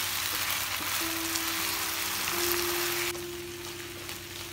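Chicken pieces and curd sizzling in hot oil in a nonstick pan as they are stirred with a wooden spatula. About three seconds in, the sizzle drops to a quieter frying of onion masala being stirred.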